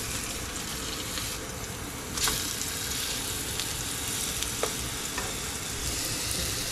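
Spruce grouse breasts sizzling steadily in a little oil in a nonstick frying pan on low heat. Light clicks and scrapes of a plastic spatula turning them, with one sharper knock about two seconds in.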